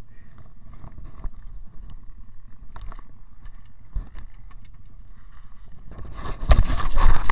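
Low rumbling noise with scattered knocks from a pit bike lying on its side after a fall. About six seconds in it turns much louder, with a rapid run of knocks and scraping as the bike is moved.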